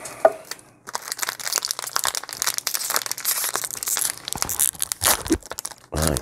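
Plastic inner bag in a tube of Chipstar crisps being torn open and crinkled by hand: a dense crackling rustle full of small clicks that starts about a second in and runs for several seconds.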